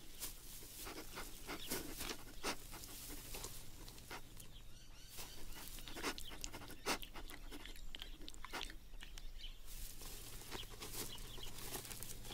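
A male red kangaroo sniffing and snuffling at a female's urine to check whether she is ovulating: soft, irregular short sniffs and clicks, faint throughout.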